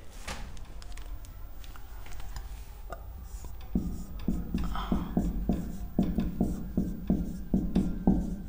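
Writing strokes: faint scratching at first, then from about four seconds in a quick run of short strokes, two or three a second.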